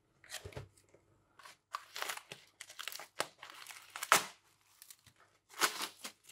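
Parcel packaging being torn open and unwrapped by hand: irregular crinkling and tearing with a few sharper crackles.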